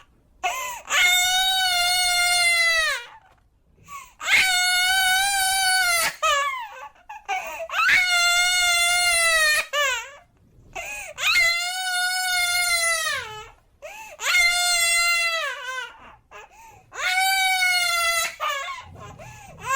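A baby crying: about six long, high wails, each a second or two long, with short catches of breath between them.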